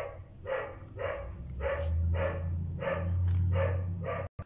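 A dog barking over and over at a steady pace, about two barks a second, with a low hum underneath for much of the time. The sound cuts off abruptly near the end.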